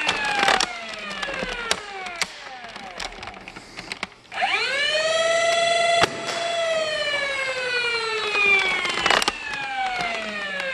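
Electric flywheel motors of a BlasterCore afterburner on a Nerf blaster: a motor whine winding down at the start, then spinning up quickly to a steady pitch about four seconds in, holding, and gliding slowly back down. Sharp clicks and knocks come through it, the loudest about six seconds in and again near the nine-second mark.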